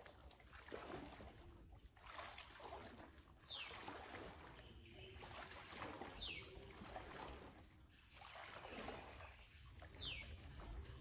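Water sloshing and swishing around a person's legs in chest waders, in uneven surges as he wades slowly through a shallow pond. A bird gives a short falling whistle three times.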